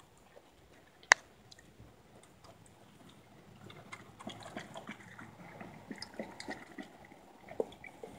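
A dog eating raw meat from a stainless steel bowl: wet slurping and chewing with many small irregular clicks, picking up a few seconds in. One sharp click about a second in.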